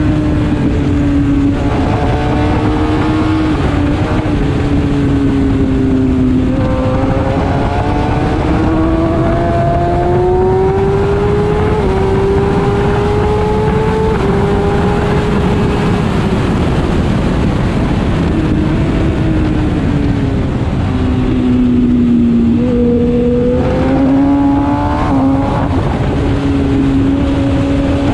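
Kawasaki ZX-10R's inline-four engine at track speed, its pitch climbing under throttle and dropping in steps several times as it changes gear and slows for corners, over heavy wind rush on the onboard microphone.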